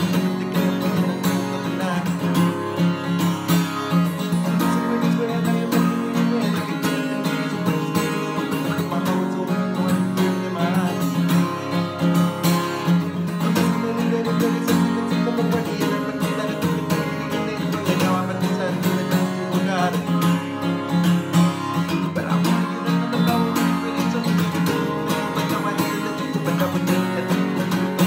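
Acoustic guitar strummed steadily while a man sings over it.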